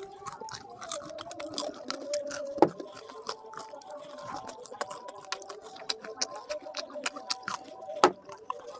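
People chewing and biting into crisp jalebi: a run of short crunching and smacking clicks, with a sharper crunch about a third of the way in and another near the end.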